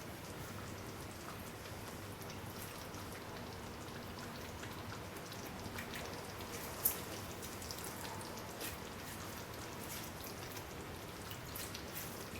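Curry sauce simmering in a pan, faint bubbling with small irregular pops and ticks, one sharper pop about seven seconds in.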